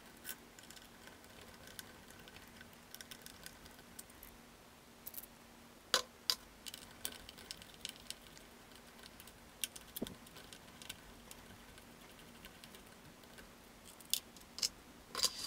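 Faint, scattered clicks and taps of a hex driver turning screws and of hard plastic parts being handled on an RC truck chassis, with a few sharper knocks about six, ten and fourteen seconds in, over a faint steady hum.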